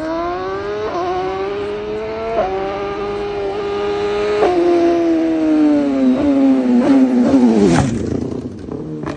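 BMW S1000RR inline-four with an SC-Project CRT slip-on exhaust accelerating hard, its pitch climbing and stepping at several quick upshifts. Near the end it gets loudest and the pitch falls steeply as the bike passes close by, then fades.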